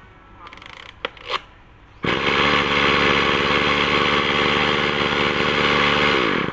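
Kawasaki TJ27 brush cutter's small two-stroke engine: a short lull with a couple of sharp clicks, then the engine starts abruptly about two seconds in and runs at a steady speed for about four seconds. Near the end it is switched off, dropping in pitch as it dies away.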